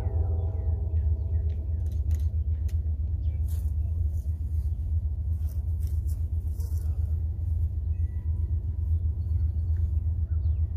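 The tail of a distant train horn chord fades out in the first half second, leaving a steady low rumble.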